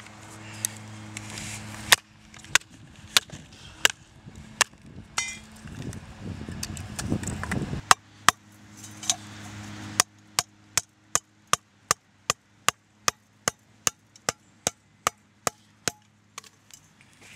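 Repeated sharp knocks of a baton striking the spine of a folding knife, the DPX HEST Folder 2.0 with its D2 steel blade, driving it into wood. The blows come irregularly for the first eight seconds, with a rough crunching stretch around six to eight seconds in, then fall evenly at about two a second from ten seconds in.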